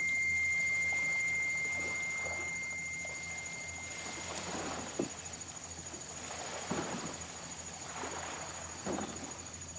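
Electronic synthesizer holding a thin, steady high tone that cuts off about four seconds in, over a low hum. After that come a few soft, irregular swishes, about one a second.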